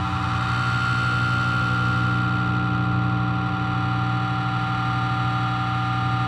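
Steady distorted droning music: several held tones that run on unchanged, with no beat.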